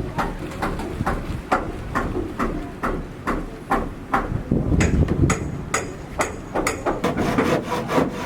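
Hammer blows on a building site, struck in an uneven run of about two a second, several of them in the middle ringing with a sharp metallic tone.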